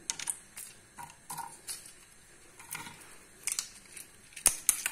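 Walnut kernels and their dry inner membranes being picked apart by hand: scattered small clicks and crackles, with a sharper click about four and a half seconds in.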